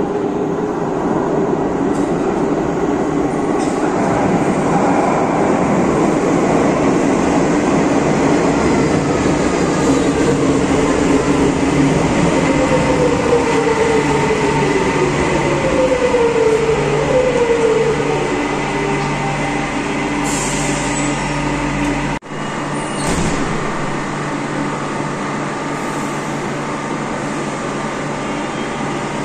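Madrid Metro Line 6 electric train pulling into an underground station: steady running noise from wheels and motors, with a falling electric whine as it brakes. Once it stands at the platform this settles to a steadier, quieter hum, and a short hiss comes about twenty seconds in.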